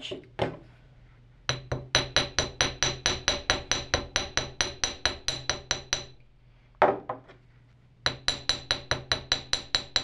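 A hammer striking an 18-gauge wire loop on a steel bench block, giving rapid ringing metallic taps, about five a second. The taps come in two runs with a single blow between them, work-hardening the wire.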